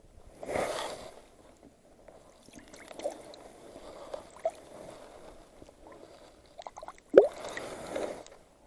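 Water splashing twice, about half a second in and again about seven seconds in, with light clicks and handling noises between.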